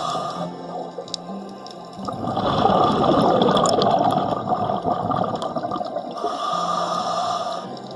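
A diver's breathing heard underwater: a hiss of breath drawn in at the start, a loud rush of exhaled bubbles from about two to five seconds in, then another in-breath hiss near the end. A steady faint hum runs underneath.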